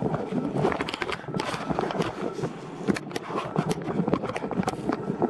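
Rustling, rubbing and knocking of a handheld camera being moved about, with many short irregular clicks.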